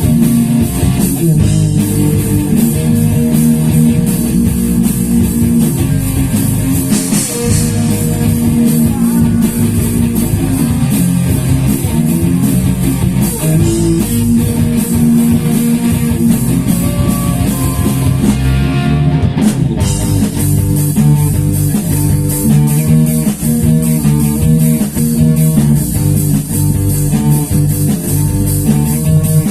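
Instrumental rock music with guitars, bass guitar and drum kit, with a brief break about two-thirds of the way through.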